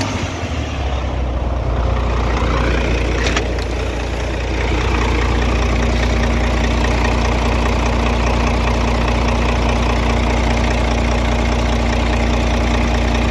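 Renault Premium 450 DXI truck's six-cylinder diesel engine idling steadily, heard close up in the open engine bay. A single click comes about three seconds in, and the engine sound gets a little louder about five seconds in.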